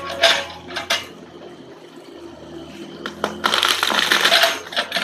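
Mahogany tree wood and branches cracking and crashing as an excavator pulls the tree over: a few sharp cracks in the first second, then a dense crackling crunch about three and a half seconds in. A low engine hum runs underneath.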